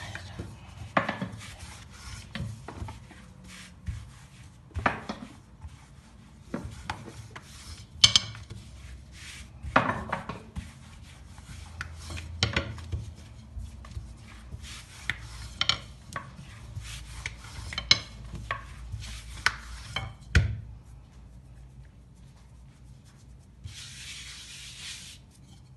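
Thin wooden rolling pin (oklava) rolling a sheet of yufka dough on a floured granite counter: rubbing strokes with irregular sharp knocks, and a brief hiss near the end.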